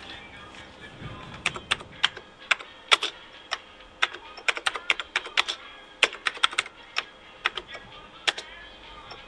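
Computer keyboard keys being typed at an uneven pace: a couple of dozen sharp clicks starting about a second in and stopping shortly before the end, as a short command is typed.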